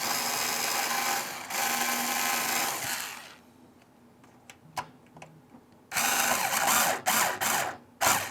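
Black & Decker power drill driving the power supply's mounting screws into a PC case: one run of about three seconds with a brief dip partway through, then, after a pause, three shorter bursts near the end.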